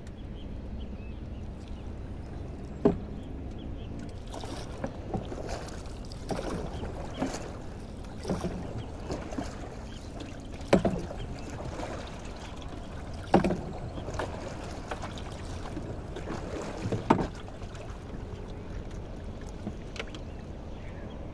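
Small wooden rowboat being worked along with a single oar: water splashing and sloshing, and four sharp knocks of wood on the hull a few seconds apart, over a low steady rumble.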